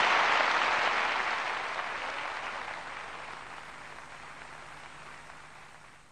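A large audience applauding, the clapping fading steadily away to almost nothing.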